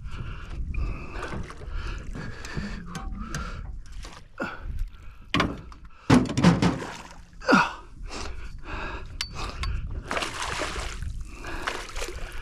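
An angler gasping and breathing hard while fighting a hooked fish from a boat, with water splashing. A few louder short sounds come a little past the middle.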